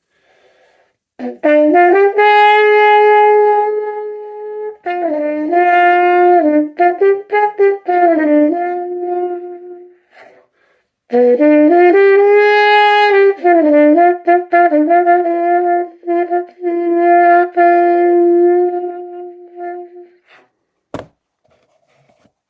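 Trumpet played with a plunger mute: two loud melodic phrases with a short pause between, apparently one through each of two plunger mute models, with notes that dip and bend in pitch. A single sharp click near the end.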